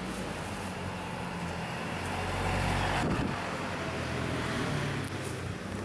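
A motor vehicle passing on a nearby road: a steady engine hum with traffic noise that swells about halfway through and then fades.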